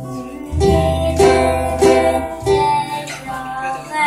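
Ukulele and steel-string acoustic guitar strummed together in a steady rhythm, with a voice singing along.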